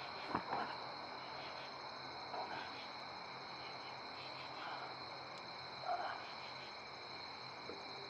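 Steady, unbroken chorus of crickets and other night insects, chirring in fine pulses, with a few faint, short soft sounds about half a second in and again around two and a half, five and six seconds.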